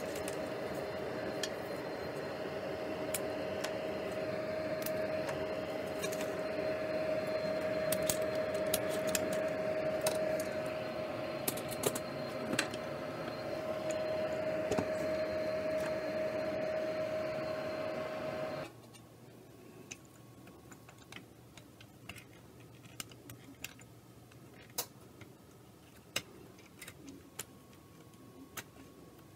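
A small fan-driven machine on the soldering bench running with a steady whirr and a constant hum, switched off abruptly about two-thirds of the way through. Light clicks and taps of parts and tools being handled run throughout and stand out once it stops.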